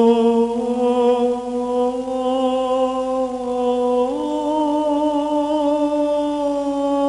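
Orthodox liturgical chant: a voice holding long, drawn-out notes, stepping up to a higher held note about four seconds in.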